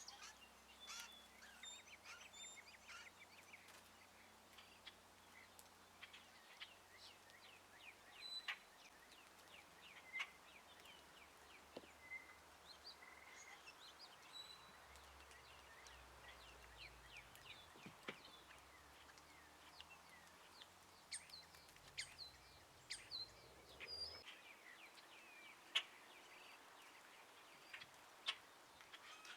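Birds chirping faintly: many short, high chirps and quick sweeps at irregular intervals, with a few sharper ones near the end.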